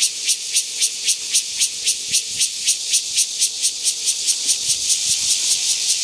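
Cicada singing: a loud, high buzz that pulses evenly about five times a second.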